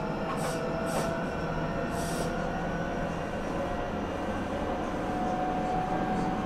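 Meitetsu 9500 series electric train running, heard from inside the car: a steady rumble of wheels on rail under a motor whine that rises gently in pitch. A few short hissing bursts come in the first two seconds.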